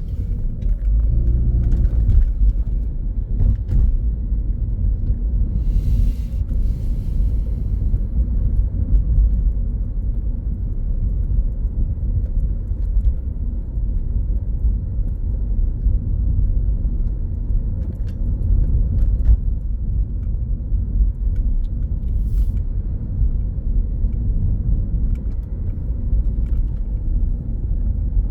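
Steady low rumble, with a brief hiss about six seconds in and a few faint clicks.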